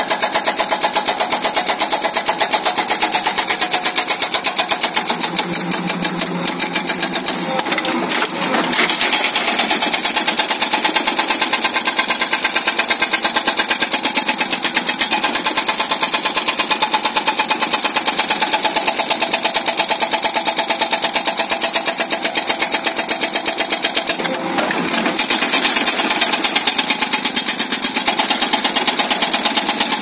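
Soosan SB43 hydraulic breaker on a backhoe arm hammering its chisel into the ground in rapid, even blows, with short breaks about eight seconds in and again near twenty-five seconds.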